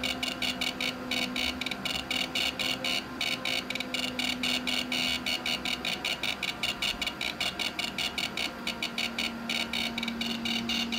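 Handheld EMF meter gadget giving out a rapid electronic ticking buzz, about five ticks a second, with a low steady hum underneath that drops out for a couple of seconds past the middle.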